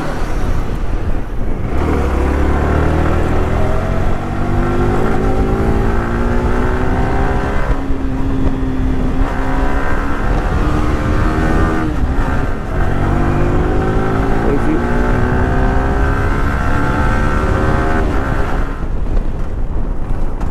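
Sport motorcycle engine accelerating through the gears, its pitch climbing in long rises and dropping back at each upshift, with wind buffeting the microphone.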